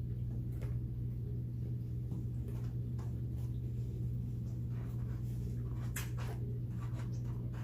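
A steady low hum, with faint scattered clicks and taps from people eating tacos.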